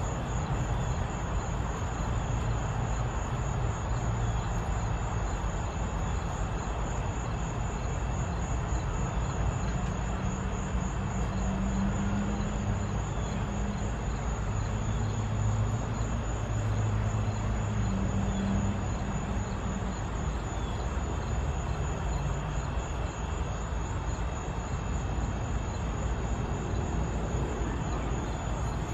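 Steady outdoor background noise: a low rumble of distant traffic that swells for several seconds in the middle, under a continuous high-pitched insect drone.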